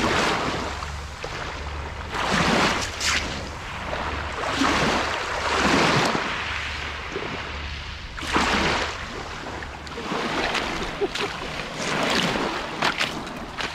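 Small waves breaking and washing up and back over a pebble shingle beach. The wash surges about every two seconds. A steady low rumble of wind on the microphone runs underneath.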